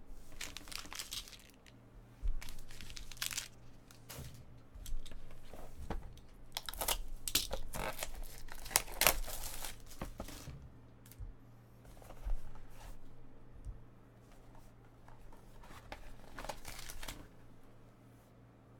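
Trading card packaging being torn open and crumpled: a run of crinkly rips and rustles, densest in the middle, with a few more near the end.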